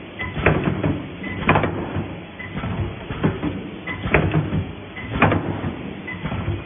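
Gantry-type wire mesh welding machine running: its electrode heads clamp down on the crossing wires in repeated sharp clunks, every one to two seconds, with mechanical clatter between.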